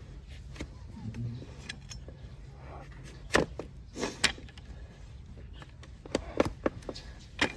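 Trimming blade cutting through an overgrown donkey hoof, a short sharp crack with each cut into the horn: one a little over three seconds in, a pair about a second later, and a quick cluster around six to seven seconds in. A low steady hum runs underneath.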